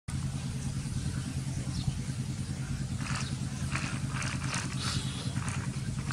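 An engine or motor running steadily with a low drone. From about three seconds in, faint short higher-pitched sounds come and go over it.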